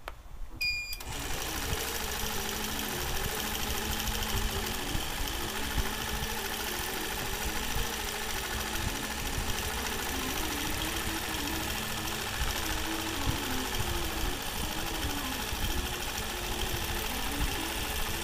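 A short electronic beep, then a Nolting Pro longarm quilting machine starts and runs steadily, stitching a computer-guided line pattern, its motor hum wavering up and down in pitch as it follows the curves.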